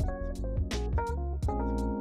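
Background music: a keyboard melody stepping over held chords, with a steady beat.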